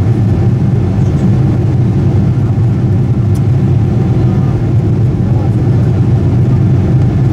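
Steady cabin noise inside a Boeing 747-8i on approach: a low, unchanging drone from its General Electric GEnx-2B engines, mixed with rushing airflow over the fuselage.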